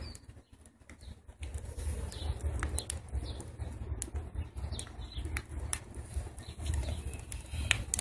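Wood fire burning in a rocket stove's feed chamber: the burning sticks give off scattered sharp pops and crackles over a steady low rumble.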